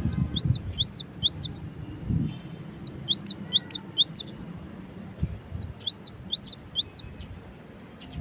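Cinereous tit (gelatik batu) singing three phrases of four or five quick repeated notes, each note dipping then rising in pitch, with short pauses between phrases.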